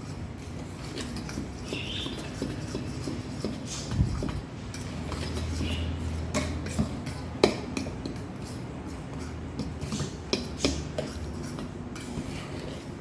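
A utensil stirring dry cornmeal, flour and spices together in a mixing bowl, with irregular clinks and scrapes against the bowl and a louder knock about four seconds in.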